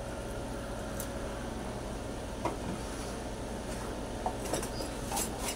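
A few faint clicks and light knocks of small objects being handled and set down on a shelf, over a steady low hum.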